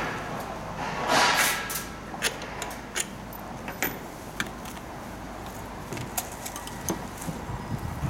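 Stand-fan parts being handled and fitted together: a short rustle about a second in, then scattered light clicks and knocks of plastic and metal parts.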